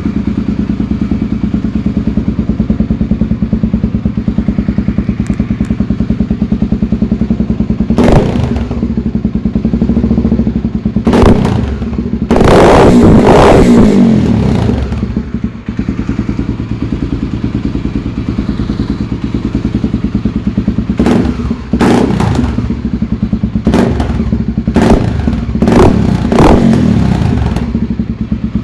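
Honda XR 250 Tornado's single-cylinder four-stroke engine idling steadily through a WACS Tyranno aftermarket exhaust tip, revved in short throttle blips about eight times, with one longer rev near the middle.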